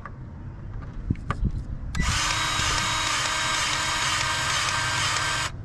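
A powered grease gun running steadily for about three and a half seconds, pumping grease through its hose into a chassis grease fitting on a concrete power buggy, then stopping abruptly. A few short clicks come before it starts.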